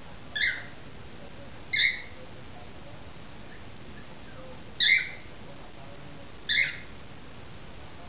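Cockatiel giving four short, sharp chirps, spaced one to three seconds apart.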